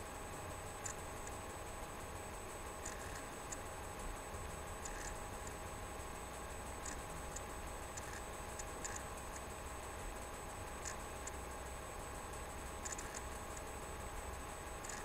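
Room tone with a steady electrical hum and faint, sharp ticks, roughly one every couple of seconds, sometimes two close together.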